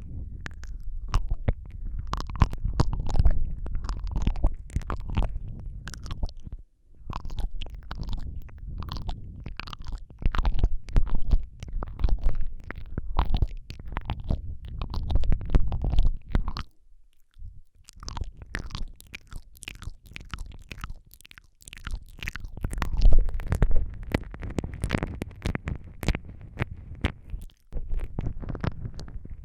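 ASMR mouth sounds made right at a Rode microphone: rapid wet clicks and smacks of lips and tongue over heavy low-pitched noise from breath and contact at the mic. They come in runs with a few short pauses.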